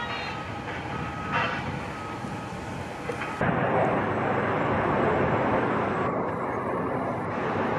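Outdoor background of distant traffic. About three and a half seconds in, it gives way suddenly to a louder, steady rushing of wind on the microphone.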